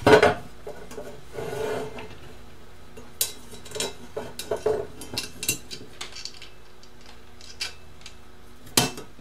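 Small metal parts being handled on a bench: a 3D printer's bed-carrier plate and bracket knocking and scraping together while being lined up for M3 screws and nuts. It starts with a loud knock, followed by a scrape and a run of light clicks, and a sharp click near the end.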